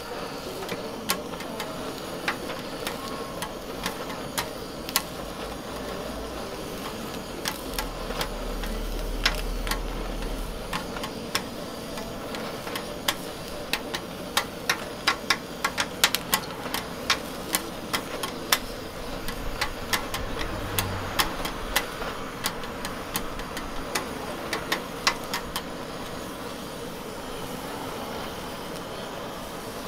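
Handheld gas torch blowing a flame onto chicken pieces sizzling on a flat steel griddle, a steady hiss, broken by many sharp clicks and taps of a metal spatula against the griddle that come thickest in the middle.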